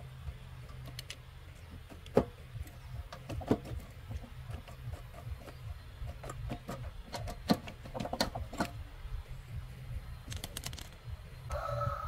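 A few sharp clicks and knocks at irregular intervals over a steady low rumble, with a short pitched sound near the end.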